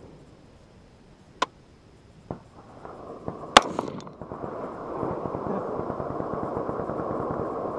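A gunshot fired at a clay target: a sharp crack about a second and a half in, then a louder shot with a short ringing tail about three and a half seconds in. A steady rushing noise follows and runs on.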